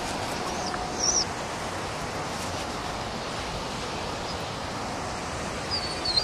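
Steady outdoor noise with wind, and a few short, high chirps about a second in and again near the end.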